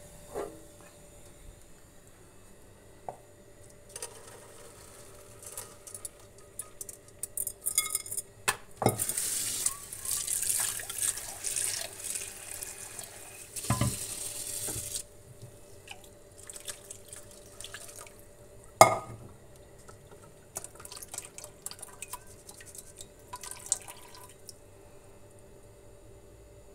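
Tap water running onto boiled lentils in a stainless mesh strainer in a kitchen sink, for about six seconds in the middle, as the lentils are rinsed. A few knocks and clatters of the strainer and pan against the sink come around it, the loudest a sharp knock a few seconds after the water stops.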